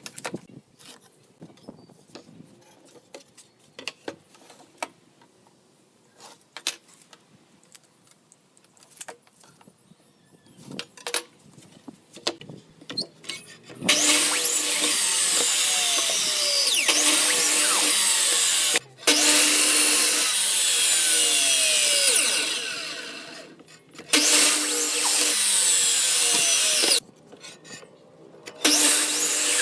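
Scattered small knocks and clicks of wood and tools being handled, then about fourteen seconds in a power tool starts working wood, running in four long stretches with short breaks between them, its pitch shifting as it meets the load.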